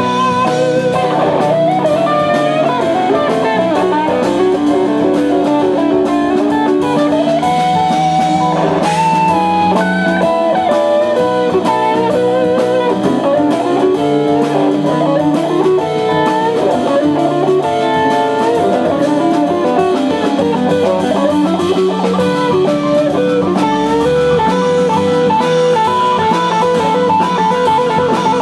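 Live rock band playing an instrumental passage: an electric guitar lead with bending, sliding notes over bass guitar and drum kit.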